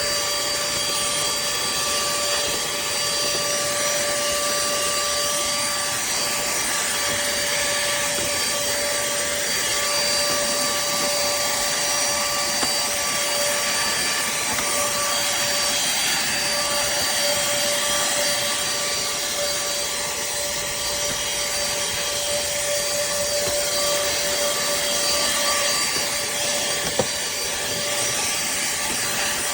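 Pemacom cordless handheld vacuum cleaner running steadily as it is worked over carpet: a constant motor whine over a dense airflow hiss, with one short click near the end.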